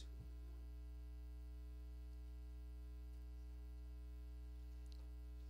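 Steady low electrical mains hum with a faint buzz of evenly spaced overtones, with a small click just after the start.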